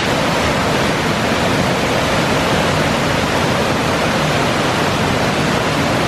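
Mountain waterfall cascading down rock ledges into a gorge pool, a steady, loud rush of falling water heard close by.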